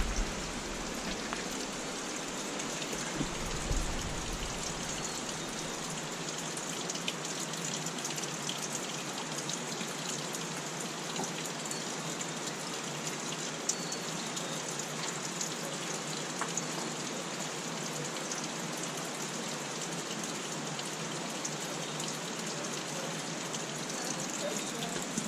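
Steady splashing rush of a brook's waterfall, even and unbroken throughout.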